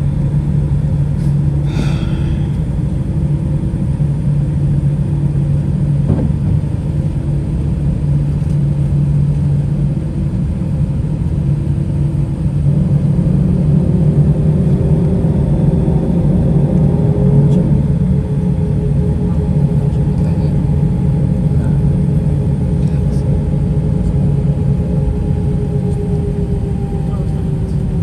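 Airbus A320 cabin noise: a steady low rumble of the twin jet engines and airframe. About 13 seconds in the engine tone rises and grows a little louder, then holds nearly steady.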